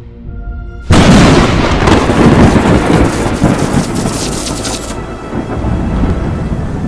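Thunderstorm sound effect: a sudden loud thunderclap about a second in, rumbling for several seconds and easing into steady rain. Faint music tones are heard before the thunder.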